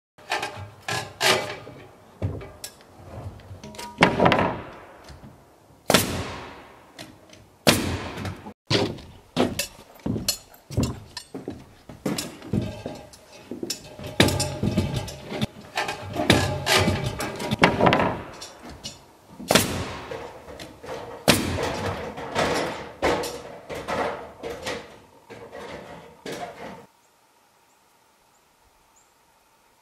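A dense, irregular run of loud knocks, thumps and bangs that stops abruptly about 27 seconds in, leaving only a faint steady hum.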